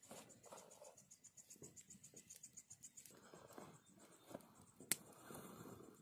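Quiet rustling and handling of a fabric stuff sack and camping gear, with a single sharp click about five seconds in.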